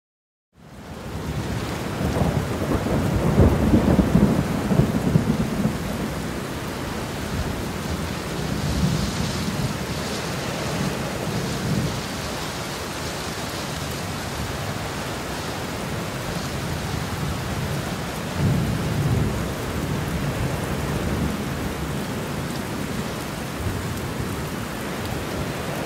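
Steady rain with thunder. It starts abruptly about half a second in, with a long low rumble of thunder a couple of seconds in and another near eighteen seconds.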